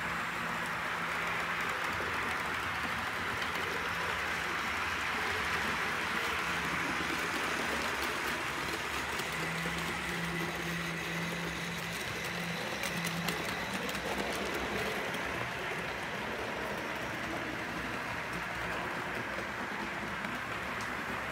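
OO gauge model trains running on the layout's track, a steady whirring hum of small motors and wheels on rail with a few light clicks about two-thirds of the way through.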